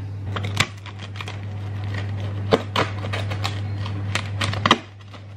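Pizza wheel rolling through a crisp pizza crust on a wooden chopping board: a run of irregular crunching clicks, over a steady low hum.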